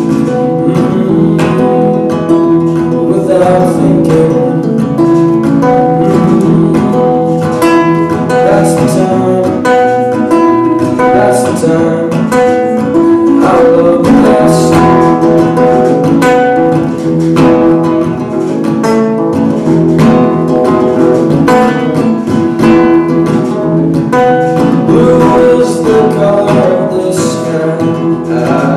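Live folk song: acoustic guitar strummed in a steady rhythm, with a man singing over it.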